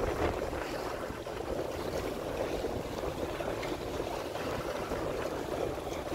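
Steady rush of wind and water aboard a sailboat under way, with no distinct events.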